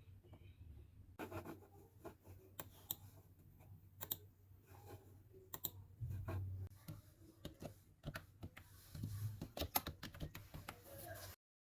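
Computer keyboard keys clicking in irregular taps and short runs as the new keyboard is typed on, over a low steady hum; the sound cuts off just before the end.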